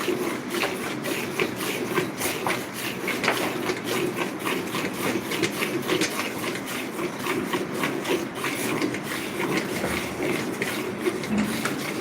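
A Murrah buffalo being milked: a quick, uneven run of short swishing strokes over a steady low hum.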